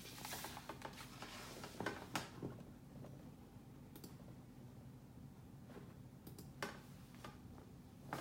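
Digital piano keys clacking and knocking under the fingers, a scatter of soft clicks with no piano tone heard, over a faint steady low hum.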